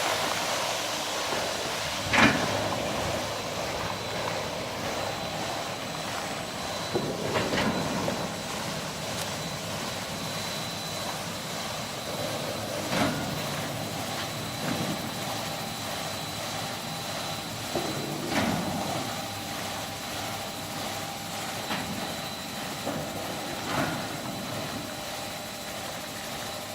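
Automatic carpet washing machine running: a steady mechanical hum and whir, with a short knock coming about every five seconds.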